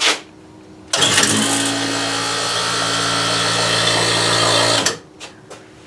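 Electric vacuum pump of a brake-booster test rig running with a steady hum and hiss, switching on abruptly about a second in and shutting off after about four seconds.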